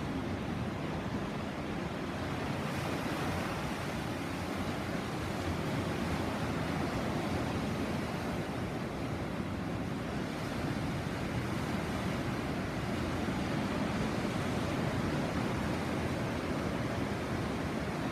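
Sea surf washing ashore as a steady, continuous rush of water, with no single wave crash standing out.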